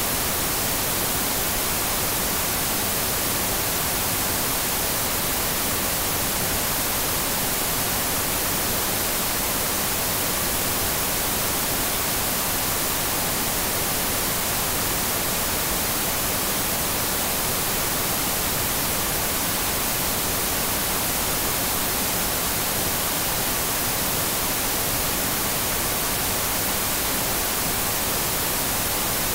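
Television static: a steady, unbroken hiss of white noise, strongest in the high end, with no changes or breaks.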